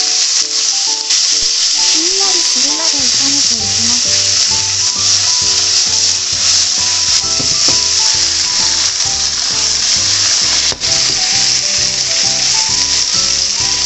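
Eggplant pieces sizzling steadily in hot salad oil in a frying pan as they are stir-fried.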